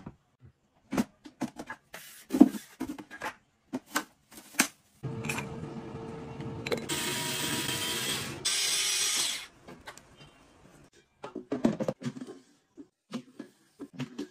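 Handheld mini electric food chopper whirring for about four seconds while its blades chop, louder in two steps before it stops abruptly. Before and after it come short plastic clicks and knocks of gadgets being handled.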